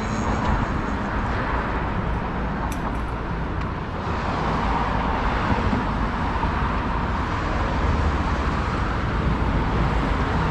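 City street ambience: steady road traffic noise from passing cars.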